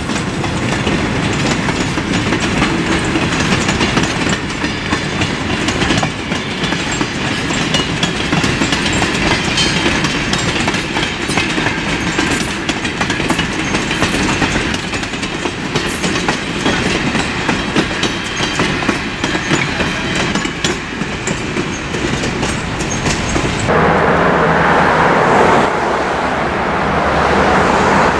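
Freight train rolling past, its wheels clicking steadily over the rail joints. The sound changes abruptly about three-quarters of the way through, growing louder in the middle range.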